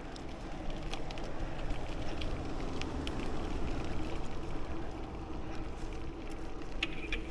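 Bicycle in motion: steady tyre and road noise with wind on the microphone, and a few light clicks.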